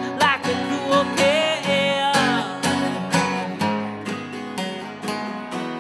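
Acoustic guitar strummed in a steady rhythm as the backing of a song, with a sliding melody line over it through the first half.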